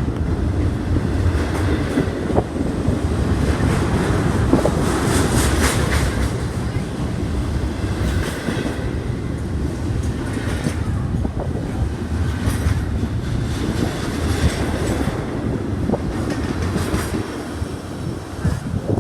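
A train rolling past at close range: a steady heavy rumble of wheels on rail, with wheel clicks over rail joints scattered throughout, easing slightly near the end.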